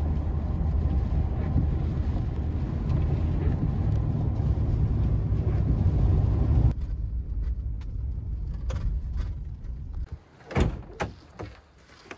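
Steady low rumble of a vehicle running, which drops off sharply about seven seconds in and fades out, followed by a few sharp knocks near the end.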